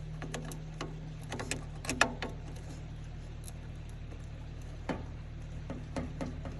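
Light clicks and knocks of battery cable clamps and tools being handled at the battery posts, the sharpest about two seconds in, over a steady low hum.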